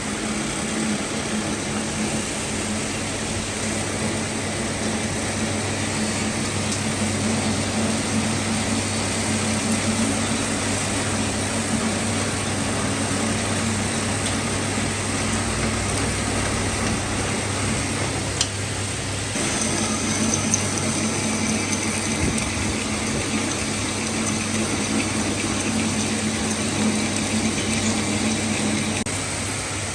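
Metal lathe running during machining: a steady motor hum under continuous mechanical running noise. About two-thirds through the sound changes and a faint high whine comes in.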